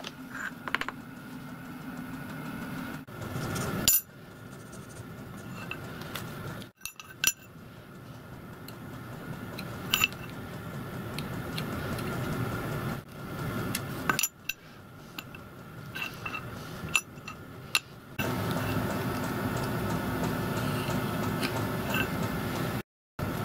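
Small steel parts and hand tools clinking and tapping against a steel plate, scattered single clicks over a steady workshop hum.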